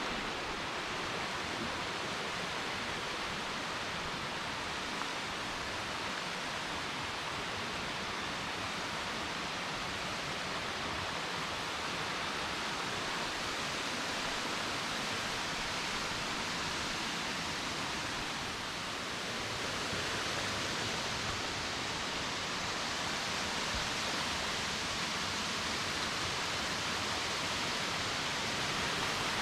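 Spring-fed waterfall: underground water flowing out of gaps in the rock and cascading down, with a steady rushing sound.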